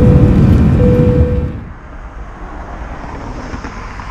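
A loud low rumble that fades out about a second and a half in, with a short steady tone sounding twice over it; then quieter, steady outdoor road-traffic noise.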